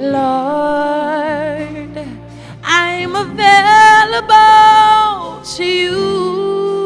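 Gospel worship song: a singer holds long, wavering notes with vibrato and slides through a wordless vocal run, loudest in the middle, over held keyboard chords.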